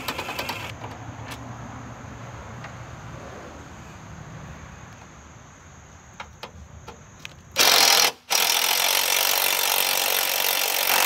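Cordless DeWalt impact driver hammering as it backs out bolts on a Jeep's radiator mountings: a short burst at the start, a brief burst about seven and a half seconds in, then a sustained run of hammering for the last three seconds or so. Quieter handling clicks lie between the bursts.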